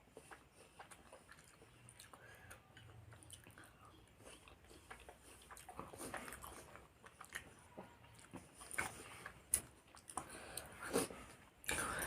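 Faint chewing and mouth sounds of a person eating: soft wet smacks and small clicks, louder and more frequent in the second half.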